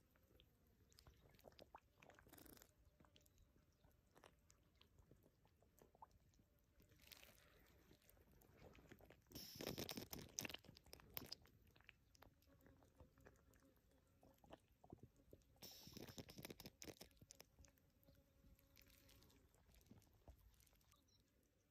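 Faint wet clicks and squelches of water and mud, with two louder wet splashing bursts, one about halfway through and another about six seconds later, as an eel lunges up out of a water-filled burrow onto a dangled bait.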